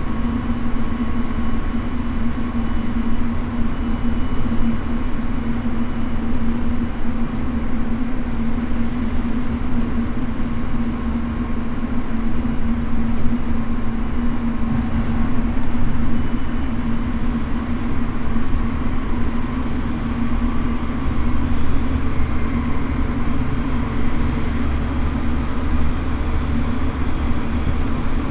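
Running sound inside a Chiba New Town Railway 9100-series electric train car with a Toyo GTO inverter, travelling between stations. The wheels rumble steadily on the rails under a steady hum that holds one pitch throughout, as at a constant speed.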